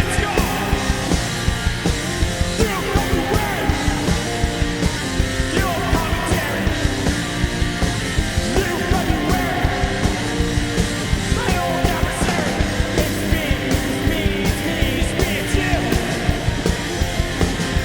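Loud punk rock band playing: a fast drumbeat under guitars with vocals.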